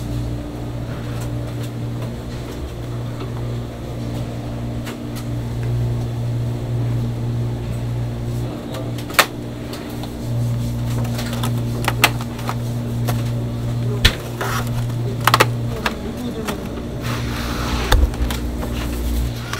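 Clear plastic sushi takeout lids being pressed shut, giving a handful of sharp plastic clicks and snaps, most of them in the second half. A steady low machine hum runs underneath.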